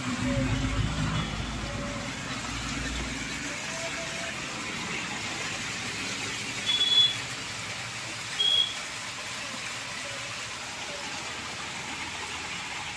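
Stream water cascading and splashing over rocks, a steady rushing. Twice about halfway through, a second and a half apart, a short high chirp sounds over it.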